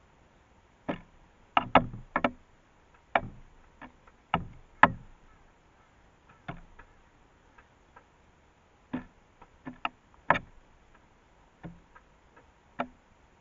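A crow's beak pecking at seeds on a bird feeder: sharp taps and knocks at irregular intervals, some in quick clusters of two or three.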